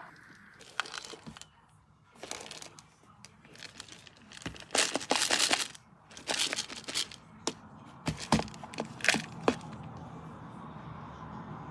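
Crackling and crinkling handling noises: irregular sharp clicks and several loud rustling bursts, the loudest about five to seven seconds in, with a steady low hum coming up near the end.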